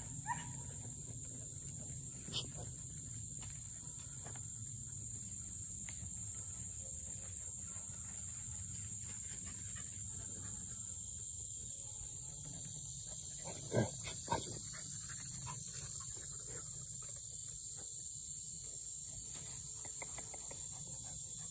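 Steady, high-pitched drone of insects in summer woods, with two brief sharp sounds about fourteen seconds in.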